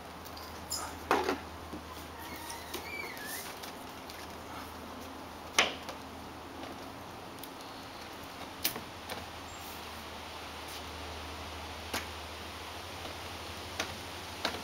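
Scattered sharp clicks and knocks from long telescoping window-cleaning poles being worked against tall windows, over a faint steady hiss; the loudest knock comes about halfway through.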